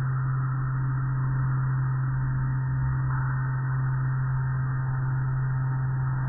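Automatic car wash machinery running: a steady low hum, with the swish of spinning cloth brush strips scrubbing a vehicle.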